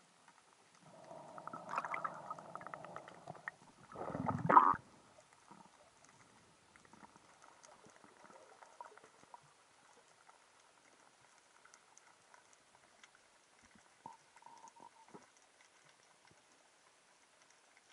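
Underwater bubbling and gurgling close to the camera, with a louder gurgling rush about four seconds in. After that there are only faint scattered ticks and crackles of underwater background noise.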